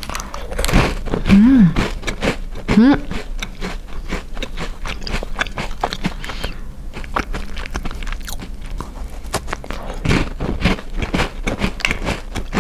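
Close-miked crunching and chewing of a crisp basil Lami cookie, air-fryer baked and then frozen: dense, irregular crunches throughout, with two short hummed voice sounds about one and a half and three seconds in.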